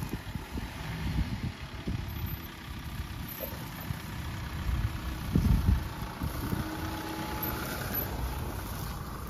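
Off-road 4x4's engine running at low speed while crawling over rough ground, with irregular low thumps and knocks from the vehicle. The biggest jolt comes about five and a half seconds in.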